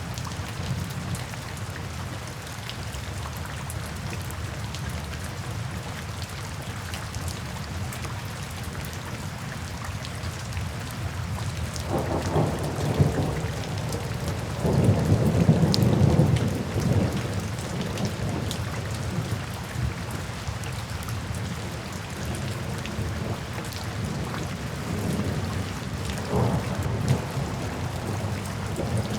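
Steady rain falling, with fine drop ticks throughout. Thunder rumbles twice around the middle, the second rumble the loudest, and once more, more faintly, near the end.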